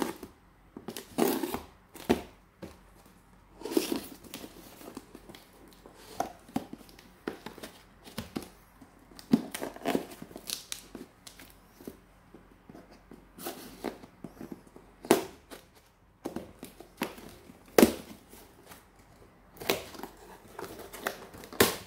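Kitchen knife slitting and scraping along the taped seams of a cardboard parcel, with tape and cardboard being torn open in irregular strokes.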